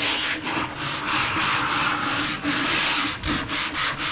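Sandpaper rubbing on a wooden cabinet door in quick back-and-forth strokes, evening out the grooves as prep sanding before lacquer paint.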